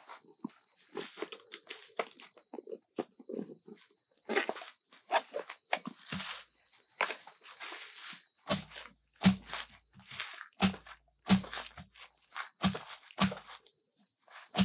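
An insect's steady high-pitched buzz, breaking off briefly about three seconds in and going on in short bursts through the second half. Under it, rustling, clicks and knocks of a PVC insert adapter being twisted and shoved into blue layflat irrigation hose, the knocks sharper and louder in the second half.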